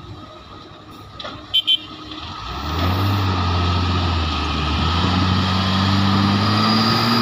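Heavy diesel engine of the mine's earthmoving equipment: two short sharp knocks about a second and a half in, then the engine revs up about two and a half seconds in, its pitch rising slightly, and runs loud and steady.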